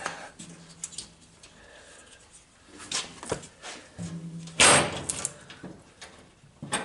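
Scattered metallic knocks and clanks of hand tools and parts during work on a motorcycle's rear wheel, with one louder clattering rattle about four and a half seconds in.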